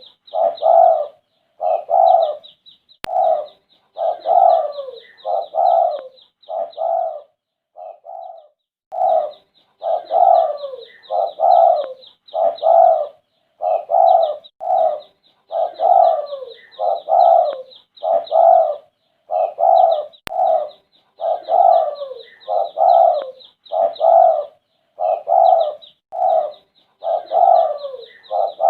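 Spotted dove (derkuku, a red-eyed bird) cooing over and over in short phrases about one a second, with a short break about eight seconds in. A fast, high chirping runs above the coos.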